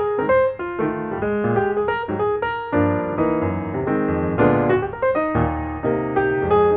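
Background piano music, a quick run of notes throughout.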